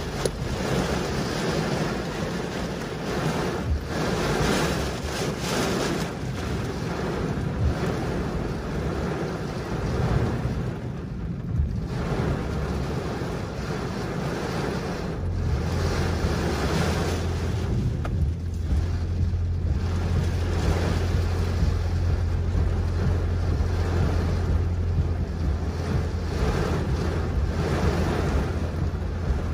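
Torrential rain pouring on a car's windshield and roof, heard from inside the cabin, with gusts of wind. A steady low hum joins about halfway through.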